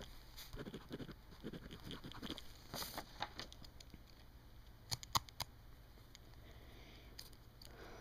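Pen writing on lined notebook paper: quick, soft scratchy strokes, with three sharp ticks about five seconds in.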